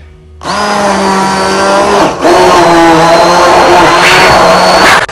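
Braun hand blender running in a tall beaker of green tomatoes, a loud steady motor whine. It starts about half a second in, dips for a moment around two seconds, then runs on and cuts off near the end.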